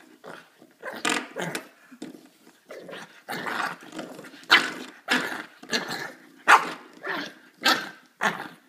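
A puppy barking and growling in a steady run of short barks, about one to two a second.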